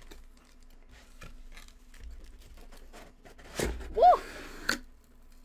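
A small cardboard gift box being opened by hand: soft scraping and rustling with small clicks, then a sharper knock about three and a half seconds in. A brief vocal exclamation follows the knock.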